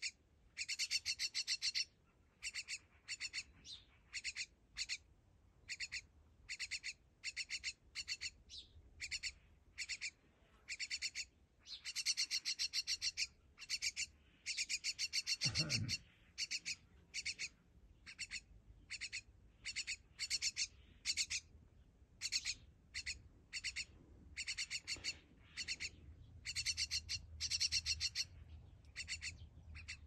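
Fledgling myna giving scratchy begging calls in short bursts, about one a second, with a few longer runs of a second or two.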